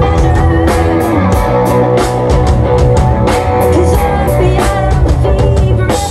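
Live rock band playing: electric guitar over a drum kit, with cymbal and drum hits keeping a steady beat.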